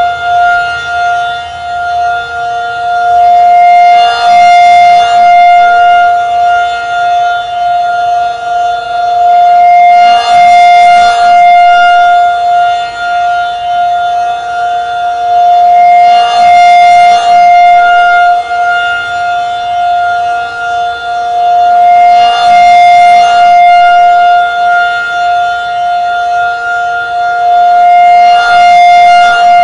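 Federal Signal 2001-SRN electromechanical outdoor warning siren sounding a steady, high wail at one constant pitch. The wail swells louder and fades about every six seconds as the slowly rotating horn sweeps toward and away from the listener.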